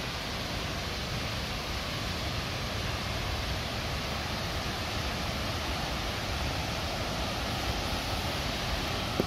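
Tall waterfall plunging into a pool: a steady rushing noise of falling water.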